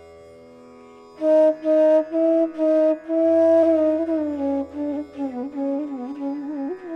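Indian classical-style flute melody over a steady drone. The flute comes in about a second in with a few separate breathy notes, then plays a winding, ornamented phrase.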